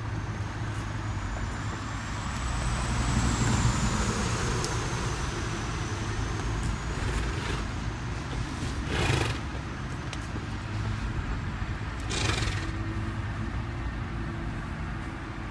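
Helicopter flying overhead: a steady low drone with a high whine that rises and then falls, loudest a few seconds in. Two brief rustling sounds come about halfway through and again three seconds later.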